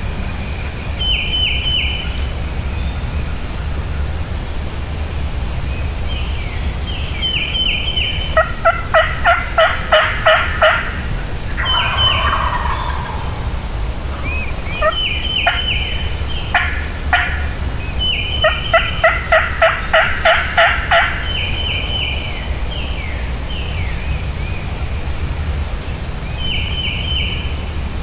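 Wild turkeys calling, with two long runs of about eight evenly spaced loud notes and shorter calls in between, over a steady low background rumble.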